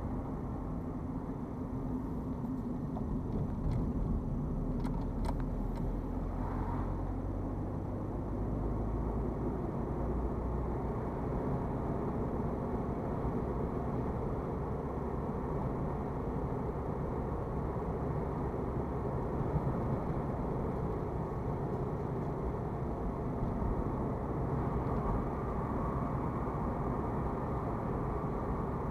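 Steady engine hum and tyre-on-road noise inside a moving car's cabin at around 30 mph. The low engine note shifts once, several seconds in.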